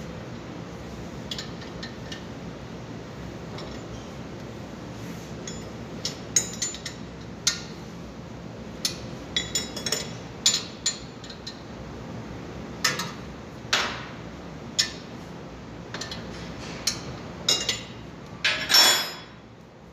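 Irregular sharp metallic clinks and knocks of hand tools and parts against a car's rear brake and wheel hub assembly, more frequent in the second half, with a longer, louder clatter near the end, over a steady background hum.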